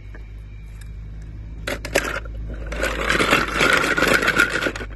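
Die-cast metal toy cars clicking, then clattering and rattling together in a plastic colander from about three seconds in, over a low steady hum. The clatter stops abruptly near the end.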